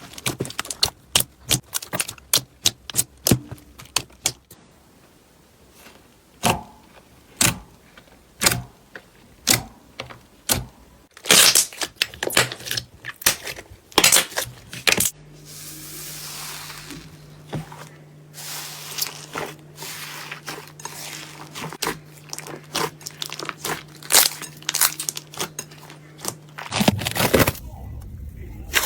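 Slime being squeezed and pressed by hand, making a fast, irregular run of sharp clicking pops. A steady low hum sits under it through the second half, and a louder noisy burst comes near the end.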